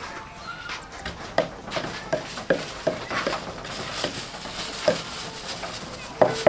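Wooden pestle pounding in a wooden mortar: a series of dull, uneven knocks, about one every half second to a second.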